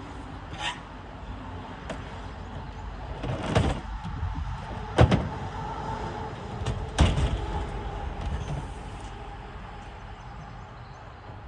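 Sharp knocks and thumps on a pickup truck's bed and tailgate as a person climbs up and shifts gear in it, loudest about 3.5, 5 and 7 seconds in, over a steady low background rumble.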